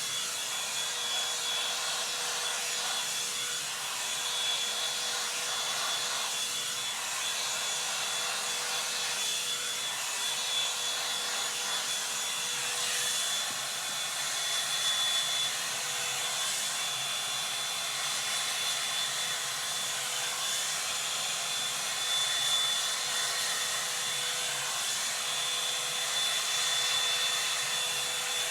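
Revlon One Step hair dryer brush running steadily, its fan and motor blowing air with a constant high whine.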